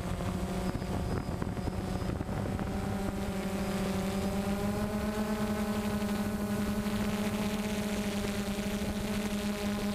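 DJI Phantom 1 quadcopter's electric motors and propellers humming steadily as it flies, the pitch shifting slightly upward partway through as the motors adjust.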